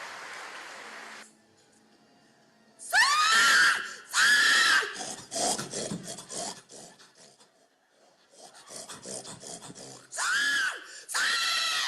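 Steady rasping noise for about the first second, then loud pig-like squeals, four of them, each rising then falling in pitch, with quick choppy grunting sounds between them.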